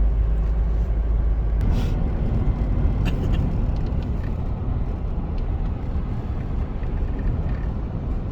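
Steady road and engine rumble inside a moving car's cabin, with a couple of light knocks about two and three seconds in.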